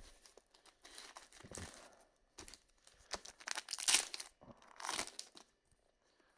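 Trading-card booster pack's foil wrapper crinkling and tearing open, with a series of short rustles, the loudest about four and five seconds in.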